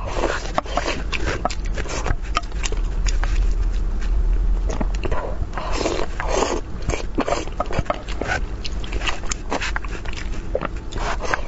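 Close-miked eating of braised fish in sauce: chewing with many short, irregular wet clicks and lip smacks, over a steady low hum.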